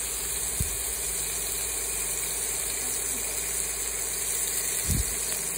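Marinated fish steaks shallow-frying in oil in a pan: a steady sizzle, with two brief low bumps, about half a second in and near the end.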